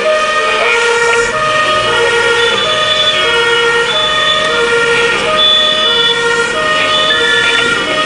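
Fire engine two-tone sirens (German Martinshorn) sounding continuously, switching between a high and a low tone about every 0.7 seconds, heard from inside a fire truck's cab.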